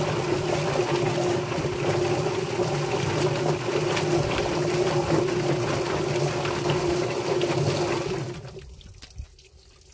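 Drum-style poultry plucker running with a scalded chicken tumbling against its rubber fingers, a steady motor hum under the noise of water spraying in the drum. It shuts off and the noise dies away about eight seconds in.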